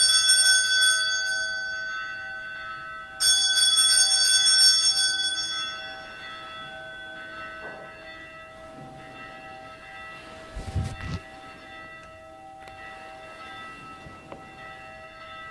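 Altar bells rung at the elevation of the chalice during the consecration of the Mass: a shaken peal of small bells, a second peal about three seconds in, then the ringing dies away slowly. A soft low thump comes near the middle.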